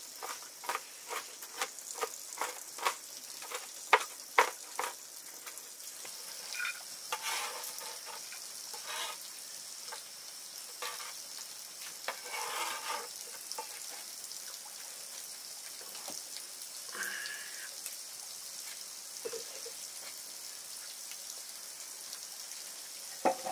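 Food frying in hot oil in a pan, a steady high sizzle, with a utensil stirring and knocking against the pan: sharp taps about twice a second during the first five seconds, then scattered scrapes and knocks.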